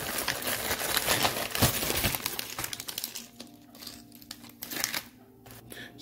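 Small plastic packaging bag crinkling as it is picked up and handled, busiest in the first half and then dying down to faint, sparse handling noise.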